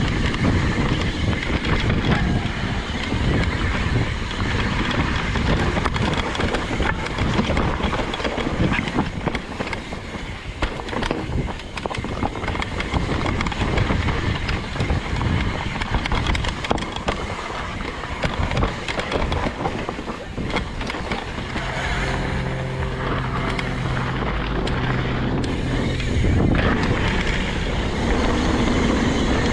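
Evil Insurgent MX mountain bike riding a downhill bike-park trail: wind rushing over the microphone, tyres on dirt and rock, and the bike's chain and frame rattling over bumps, with frequent knocks. A low steady hum comes in for a few seconds about two-thirds through.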